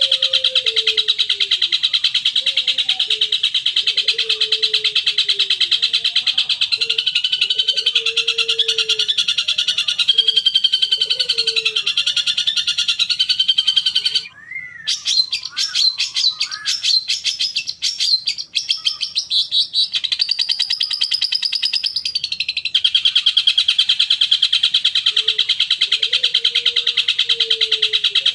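Long-tailed shrike (cendet) song played as a lure: a fast, continuous rattling chatter with lower warbled notes under it. About halfway through it cuts abruptly to a different, more varied song for some eight seconds, then the rattling chatter comes back.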